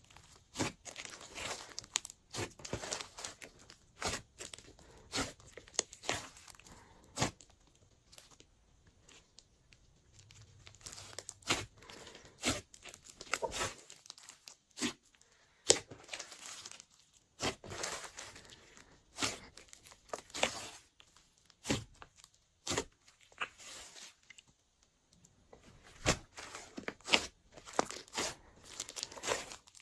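Glossy slime being squished and stretched by hand, making irregular sticky clicks, pops and crackles.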